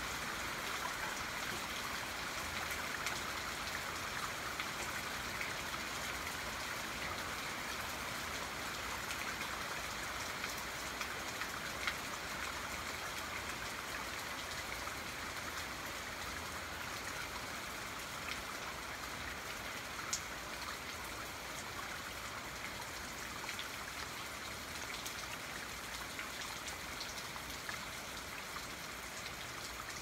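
Steady rain falling, an even hiss with scattered individual drops ticking close by, one sharper tick about two-thirds of the way through.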